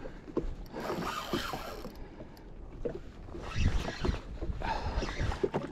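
Fishing reel being cranked to bring up a hooked fish under load, its gears clicking and whirring in uneven spells.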